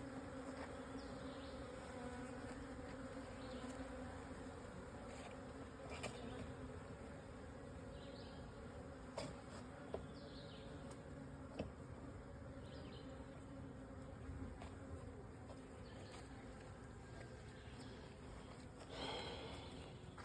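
Honeybees buzzing around an opened nuc hive: a faint, steady hum of many wingbeats, with a few small clicks.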